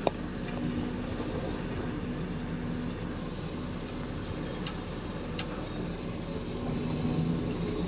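Heavy vehicle's engine running steadily at a low, even pitch.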